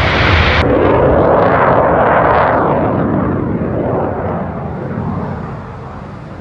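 Jet aircraft engine roar, a C-17 Globemaster's turbofans at first, cut off abruptly under a second in. Another jet roar swells over the next couple of seconds, then fades away slowly.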